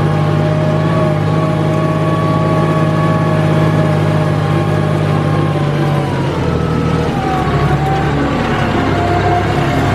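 John Deere 5075E tractor's diesel engine running steadily under load while pulling a disc harrow through the field. About six seconds in the engine note drops lower and roughens for a few seconds.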